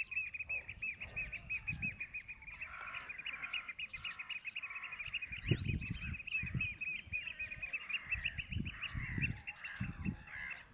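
Eurasian oystercatchers piping: a rapid run of shrill repeated notes, several a second, with lower calls joining from about three seconds in. Low rumbles come and go underneath, loudest in the second half.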